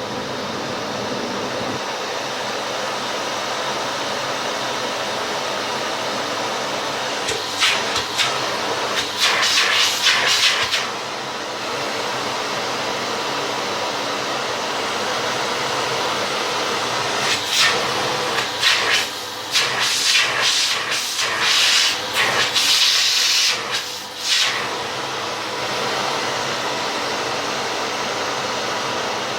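Vintage Philips P74 canister vacuum cleaner running with a steady, soft-sounding motor. Twice, for a few seconds at a time, a louder, uneven hiss of rushing air rises over it.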